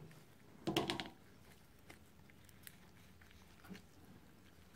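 Faint clicks and rubbing from gloved fingers and a metal pick working a rubber dust seal into a motorcycle brake caliper's piston bore, with a louder brief rustle about a second in.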